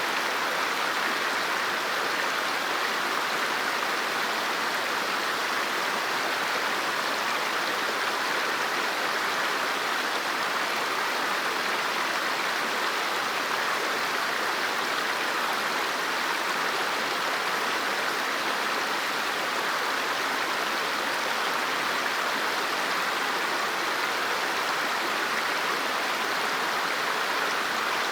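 River water flowing and rushing steadily over rocks, an even, unbroken burble.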